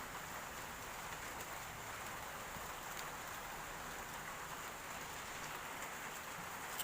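Steady hissing background noise with no clear source, and a faint click about three seconds in and another near the end.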